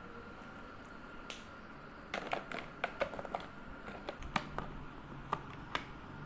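A series of irregular light clicks and taps, a dozen or so spread over a few seconds, over a faint steady hum.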